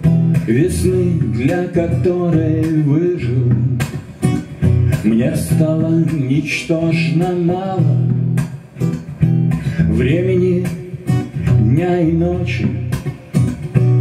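A man singing a song while accompanying himself on an acoustic guitar, strumming chords in a steady rhythm under the vocal line.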